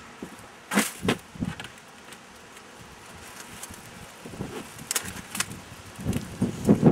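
Sharp metallic clicks and knocks from double-wall stainless steel chimney pipe being handled and fitted, three about a second in and more near the end with a few low thuds, over gusty wind rumble on the microphone.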